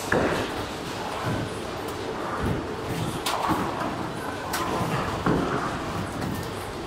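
Bowling alley din: balls rolling and pins clattering on the lanes, with several sharp knocks, one as a bowler's ball goes down onto the lane about five seconds in.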